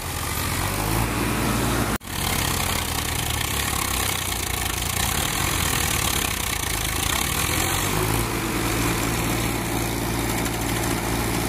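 Diesel tractor engines running hard under load, pulling a stuck straw-laden trolley out of mud. The engine note drops out briefly about two seconds in, then grows heavier and stronger about eight seconds in.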